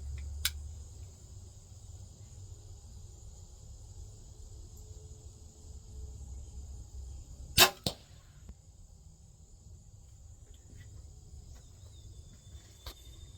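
A crossbow is fired once, about seven and a half seconds in. A sharp crack comes as the string releases, and a fraction of a second later the carbon bolt with its field point strikes the target.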